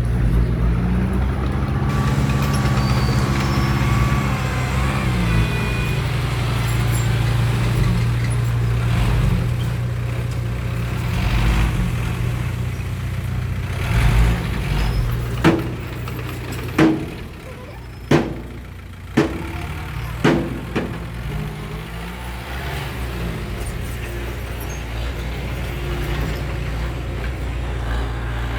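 Heavy diesel earthmoving machinery running with a steady low drone, its pitch rising and falling in the first few seconds. Midway through come five sharp knocks, about a second apart.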